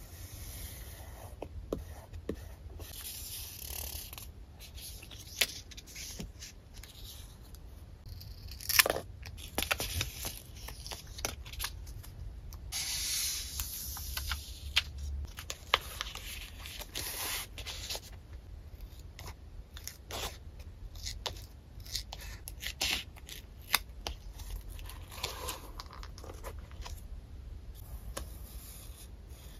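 Stickers being handled with tweezers and pressed and rubbed down by hand onto a spiral-bound paper notepad page: paper rustling and rubbing in stretches, with scattered sharp clicks and taps, the loudest about nine seconds in.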